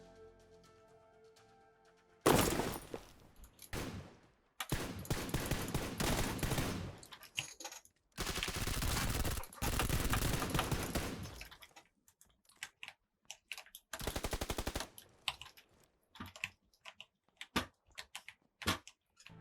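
Rapid key mashing on a gaming keyboard: several long stretches of dense clattering keystrokes, one a fast even run, then slower separate key presses near the end.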